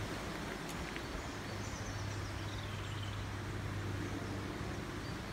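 Steady rush of a fast woodland river over rocks, with a few faint bird chirps about two and three seconds in.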